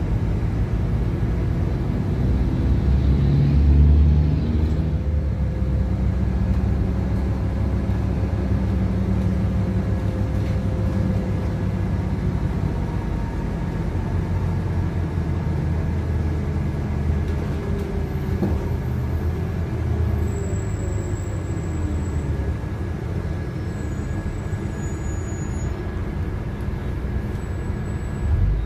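Cabin noise of a LiAZ 5292.71 city bus under way: a steady low engine and road rumble that swells briefly about four seconds in. A faint whine slowly rises and falls in pitch.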